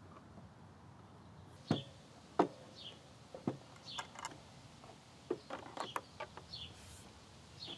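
A ratcheting wrench tightening a bolt through the wooden corner block of a table's apron, giving a few scattered sharp clicks and knocks of metal on wood. A bird chirps several times in short high notes.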